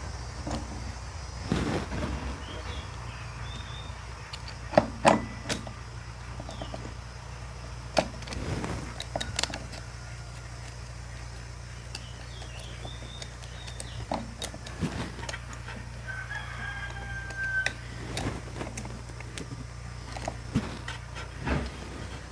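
A rooster crowing, once about two-thirds of the way in, over a steady low hum. Scattered sharp clicks and knocks of metal being handled come from a chainsaw chain being fitted onto its bar.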